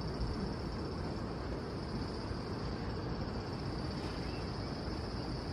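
Outdoor mountain-trail ambience: a low rumble of wind on the microphone under a steady high-pitched insect drone.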